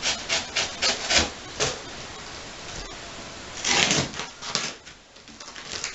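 Cardboard shipping box being handled and opened: a quick run of sharp clicks and knocks, then a longer rasping sound of cardboard or tape a little past halfway, followed by a few more clicks.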